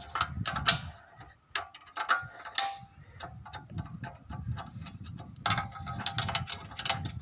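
Ratchet wrench clicking in quick runs, with metallic taps, as the bolts holding a petrol generator's exhaust are undone.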